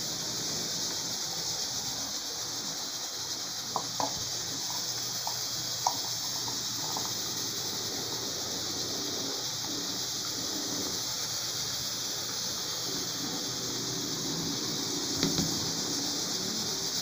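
Pressure cooker cooking potatoes, hissing out steam steadily. A few light clicks come about four and six seconds in.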